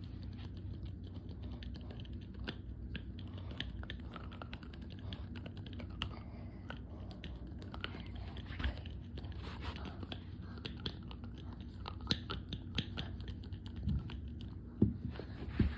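Rapid, irregular light clicks and taps, like typing, over a steady low hum, with a few louder knocks near the end.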